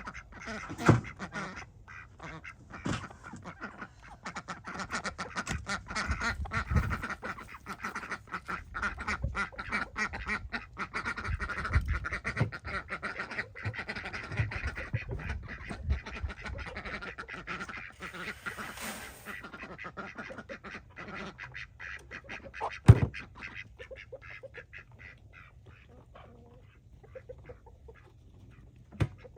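A flock of ducks quacking in rapid, overlapping calls that thin out toward the end, with a few sharp knocks, the loudest near the end.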